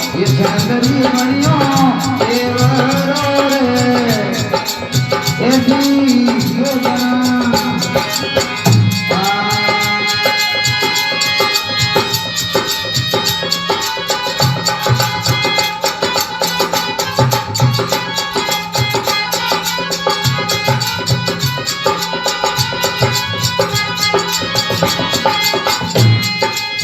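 Rajasthani folk devotional song: a male voice sings a melismatic line for about the first eight seconds, then an instrumental interlude takes over with held melodic tones, a steady drum beat and rattling percussion.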